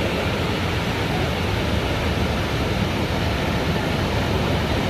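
Steady rushing noise of surf and wind at the shore, even and unbroken, heaviest in the low end.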